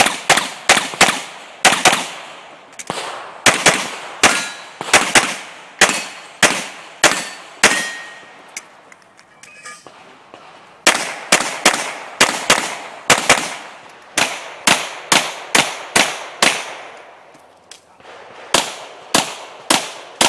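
Rapid pistol fire from a Glock 34 9mm handgun, the shots mostly in quick pairs, in three strings separated by short pauses.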